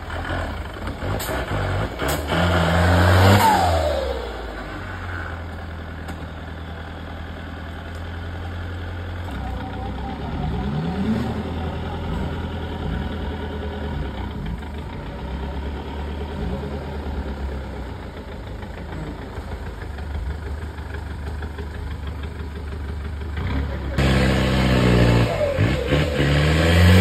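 Off-road 4x4 engine running low and steady with repeated revs as it pushes through the stage; the loudest revving comes about three seconds in and again near the end.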